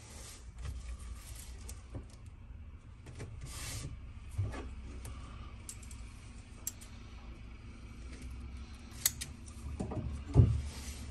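Self-adhesive tape pulled off its roll in short hissing strips and pressed and rubbed down by hand onto the back of a carpet piece, with scattered light clicks and a sharp knock near the end.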